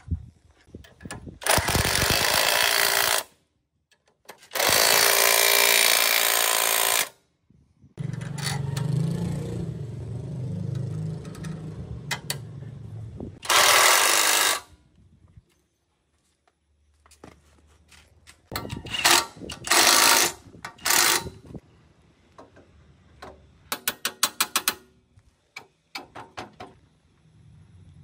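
A power tool running in several short bursts of one to a few seconds each, starting and stopping abruptly, with a quick run of clicks later on.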